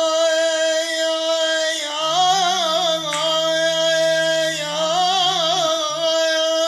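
Man singing an Iraqi abudhiya unaccompanied, holding long high notes that break into quick wavering ornaments. About two seconds in, a second, much lower voice holds a steady drone beneath him for a few seconds.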